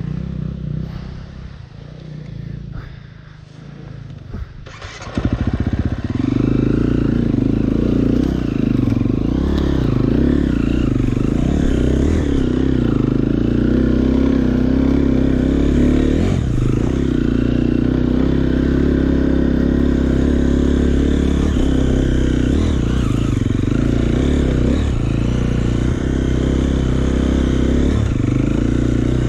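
KTM EXC 350 single-cylinder four-stroke engine. It is low and uneven for the first five seconds or so, then comes in suddenly and runs loud and steady under throttle, with a few knocks from the bike over rough ground.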